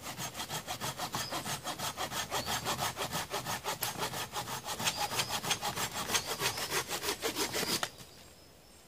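A small hand saw cutting through a fallen branch with quick, even back-and-forth strokes, about four or five a second, which stop abruptly near the end.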